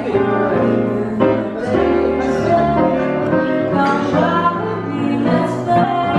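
A woman singing a slow melody into a microphone over instrumental accompaniment: live music in the lounge.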